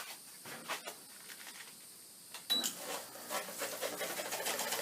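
A couple of clicks from the controls, then about halfway through the Haier air conditioner's fan starts and spins up with a fast ticking rub: the fan blades are scraping the styrofoam inner housing.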